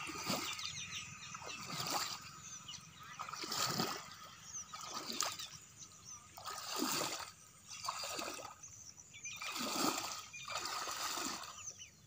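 Bare feet wading through shallow muddy pond water, a splash and slosh with each stride, about one every second and a half.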